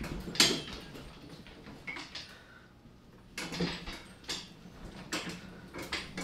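Wheeled garden cart being pushed over a bare wooden floor, its body and wheels rattling with irregular knocks and clatters.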